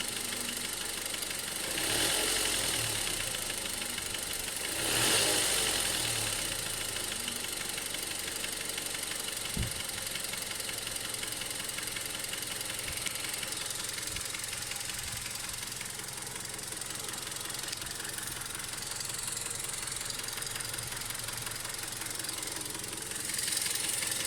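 Mazda 6 engine running warm at idle with a knock, the complaint the recording is made to show; it grows briefly louder three times, about two and five seconds in and near the end, with a single sharp click about ten seconds in.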